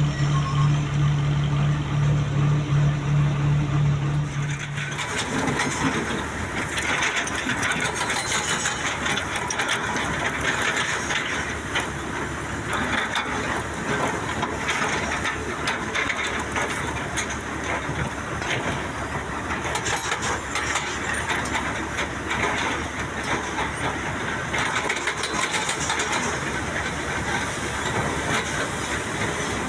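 Heavy machinery on a construction site: an engine hums steadily for about the first four seconds. It then gives way abruptly to a noisier running sound with scattered clattering.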